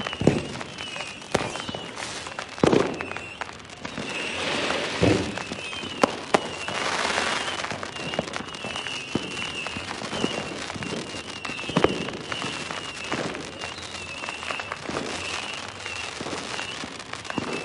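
Fireworks going off: repeated sharp bangs at irregular intervals, with stretches of crackling about a third of the way in. A wavering high whistle comes and goes throughout.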